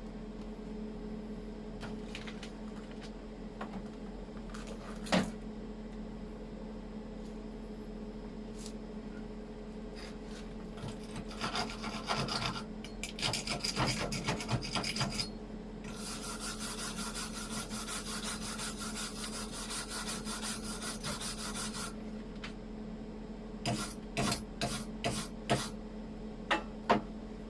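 Gasless flux-core MIG welding arc crackling, first sputtering in short fits, then a steady fast crackle for about six seconds, over the welder's steady hum. A few sharp clicks come near the end.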